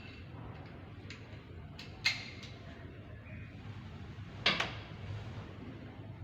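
Two sharp metallic knocks, about two and a half seconds apart, each ringing briefly, over a steady low hum: tools or metal parts being handled and set down.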